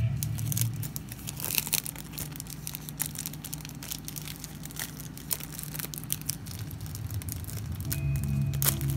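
Clear plastic sleeve around an art print crinkling as it is handled and lifted: an irregular run of sharp crackles.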